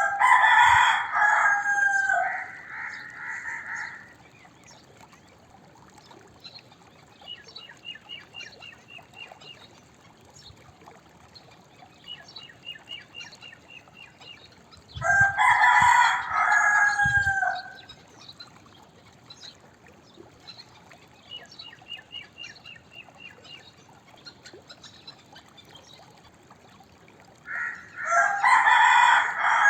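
Domestic rooster crowing three times, roughly every 13 to 14 seconds: each crow is loud and drawn out, and ends on a falling note. Between crows, fainter quick runs of repeated high notes are heard.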